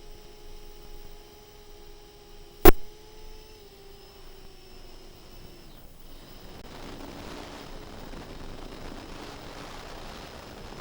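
FPV quadcopter motors whining steadily, their pitch dropping a little past a third of the way in, then giving way to a rougher, noisier sound. A single sharp click about a quarter of the way in is the loudest sound.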